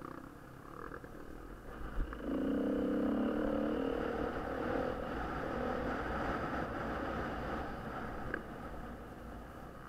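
Off-road motorcycle engine under the rider, opening up sharply about two seconds in and running hard, then easing off a little near the end. A single sharp knock comes just before the throttle opens.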